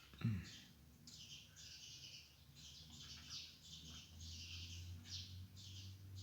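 Small birds chirping over and over in quick high-pitched notes, with a single low thump about a quarter second in and a low steady hum joining from about four seconds.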